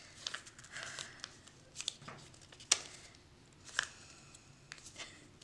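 Origami paper rustling and crinkling as it is folded and pressed flat by hand, with scattered sharp crackles as the folds are creased; the sharpest comes a little under three seconds in.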